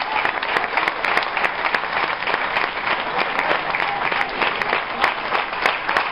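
Audience applauding, with the cast clapping along: a dense, steady clapping of many hands.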